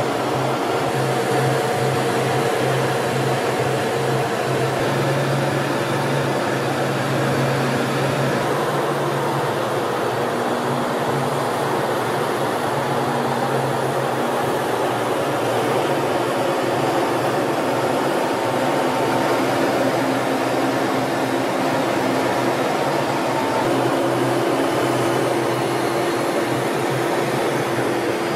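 Steady jet aircraft noise heard from inside a cockpit in flight: an even rush of engine and airflow with a few steady hum tones that change pitch about a third of the way in and again near the end.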